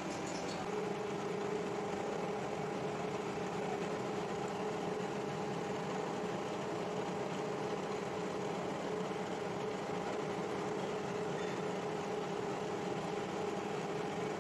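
Gear hobbing machine running, its hob cutting the teeth of a helical gear under a flow of coolant: a steady mechanical whir, with a steady whine that comes in about a second in.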